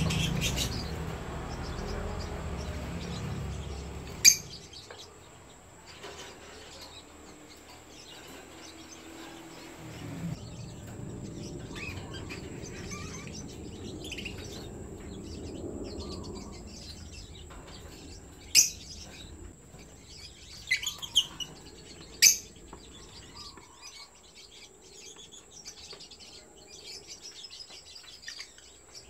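Yellow lovebirds giving a few short, sharp, piercing chirps: one about four seconds in, then a cluster of four later on, over low steady background noise.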